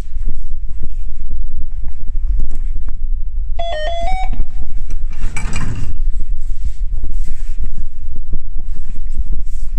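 Electronic beep of a metro fare-gate card reader as a transit card is tapped, about four seconds in: a short tone that steps up slightly in pitch. A short clatter follows about a second later, over a steady low rumble of walking and handling noise on the phone's microphone.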